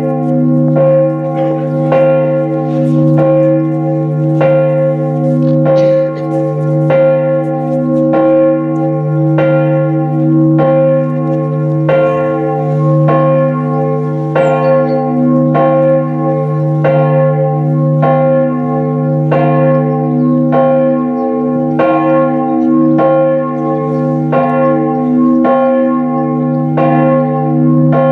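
A church bell tolling at an even pace, a stroke a little under every second, its deep hum ringing on between strokes.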